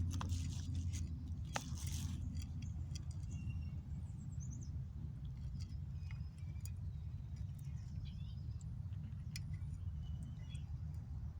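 Outdoor ambience: a steady low rumble, with rustling in the first couple of seconds, then faint scattered clicks and short high chirps.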